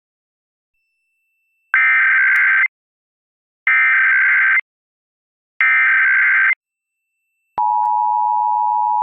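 Emergency Alert System SAME header: three identical bursts of warbling digital data tones, each about a second long and a second apart. About seven and a half seconds in, the EAS attention signal starts, a loud steady two-tone alarm that holds on, announcing a nationwide test alert.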